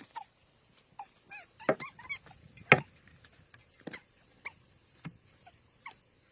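Short high whimpering calls from a small animal, scattered among sharp clicks and knocks, with one loud knock a little before the middle.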